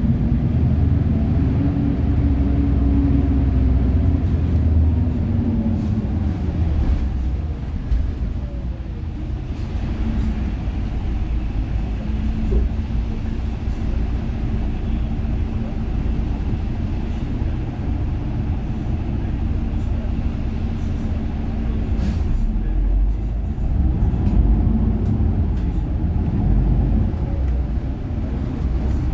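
City bus interior: the bus's engine and road rumble running continuously, the engine note falling over the first several seconds, holding a steady hum through the middle, then climbing again near the end. A short sharp click about 22 seconds in.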